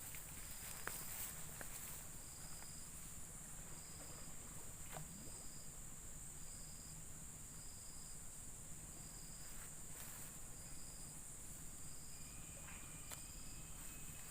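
Steady high-pitched drone of an insect chorus, with a short high chirp repeating about once a second and a few faint clicks.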